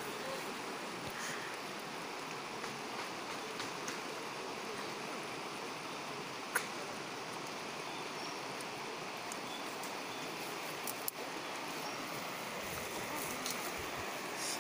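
River water rushing steadily over shallow riffles, with one short sharp click about six and a half seconds in.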